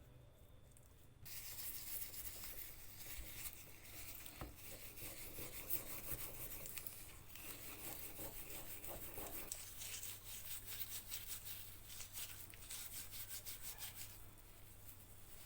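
Hand sanding or abrasive rubbing: quick back-and-forth scratchy strokes starting about a second in.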